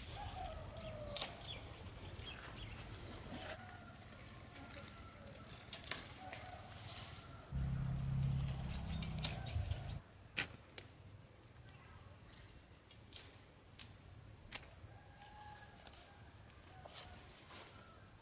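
Farmyard ambience: a steady high insect drone, with chickens clucking in short rising and falling calls and scattered sharp clicks. A low hum comes in for about two seconds near the middle and is the loudest thing heard.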